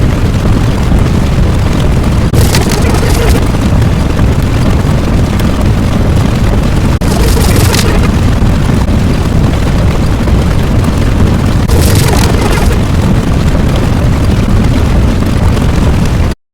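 Loud, continuous rumbling sound effect like a blast or engine roar, with a brighter hissing surge about every four to five seconds. It cuts off abruptly near the end.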